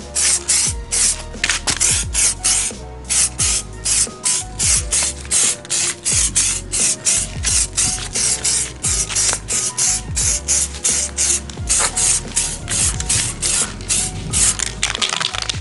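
Background music with a fast, steady beat of hissing pulses, about four a second, over a bass line.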